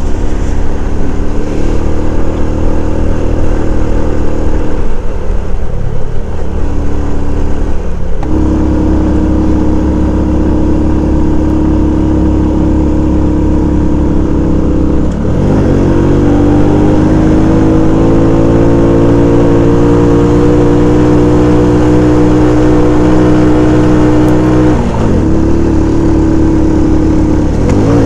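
Motorcycle engine running under way, heard from a camera mounted on the bike. Its note dips and then climbs again several times, about 8, 15 and 25 seconds in, with a long rise in pitch after the middle dip.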